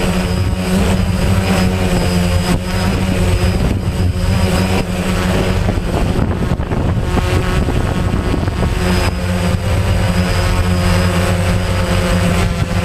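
DJI Phantom quadcopter's motors and propellers running with a steady hum, heard close up from the GoPro mounted on the drone, with gusting wind noise over it. The hum wavers and blurs for a few seconds midway.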